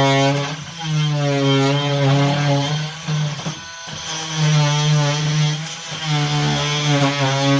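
Power saw cutting off glued wooden dowel plugs flush with a plywood floor. The motor's steady hum wavers in pitch as the blade bites and stops briefly about three and a half seconds in before cutting again.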